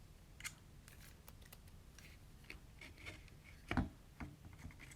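Faint scattered clicks and light taps of small metal and plastic parts being handled on a workbench, with one louder knock a little under four seconds in.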